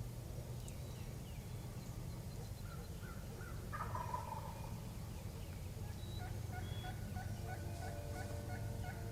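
Wild turkey gobbling once, about four seconds in. From about six seconds on comes a run of short, evenly repeated calls, over a steady low rumble.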